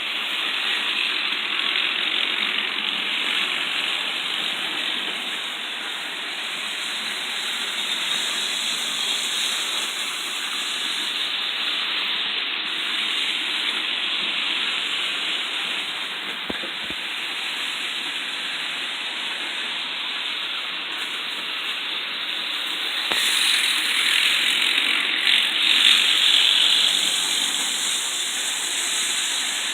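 Märklin HO model locomotives running on the track: a steady mechanical whirr and rattle of motors, gears and wheels. It grows louder for a few seconds near the end.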